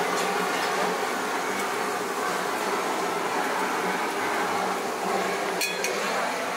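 Steady mechanical hum and noise at a street-food stall, with a couple of short clicks about five and a half seconds in.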